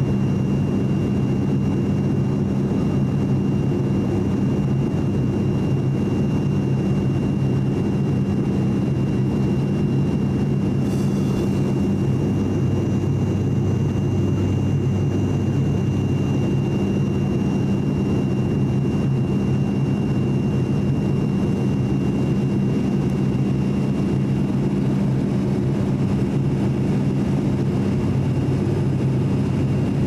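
Cabin drone of an ATR42-600 turboprop in flight: its Pratt & Whitney PW127 engines and six-blade propellers running steadily, a deep even hum with a thin high whine above it.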